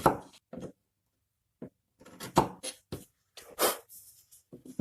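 Sharp wood chisel paring the edge of a wooden panel to bring it flush: a series of short scraping strokes, with a pause about a second in and quicker strokes in the second half.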